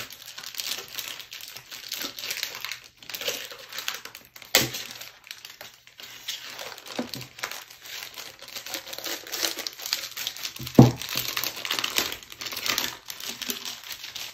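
Clear plastic shrink-wrap crinkling and rustling as a wrapped game pack is handled. There is one sharp tap about a third of the way in and a louder one about three-quarters of the way through.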